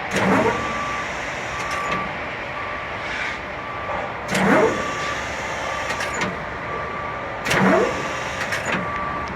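Tower crane working under remote control: steady machinery noise, with a warning beeper sounding about once a second. Three louder swooshing sweeps come about three seconds apart.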